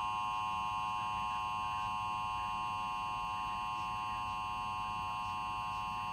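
Emergency Alert System attention signal: two tones (853 and 960 Hz) sounded together as one steady, unbroken alarm tone, announcing that a spoken emergency message is about to follow.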